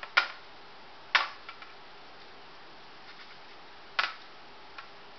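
Steel cookie cutter knocking against the tray while shapes are cut from bread slices: a few sharp clicks, the clearest just after the start, about a second in and about four seconds in.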